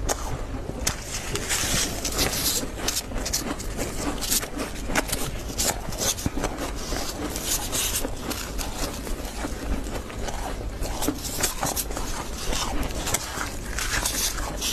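Freezer frost crunching in a dense, irregular crackle, both as it is chewed and as a plastic scoop scrapes it up from the freezer.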